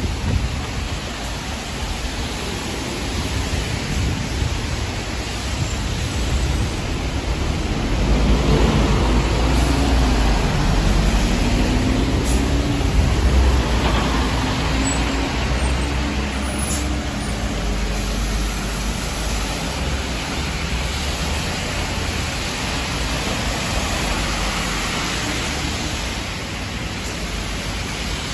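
Steady hiss of heavy rain and tyres on a wet road. A city bus passes close by about a third of the way in, its engine rumble and a gliding engine note swelling and then fading back into the rain and traffic.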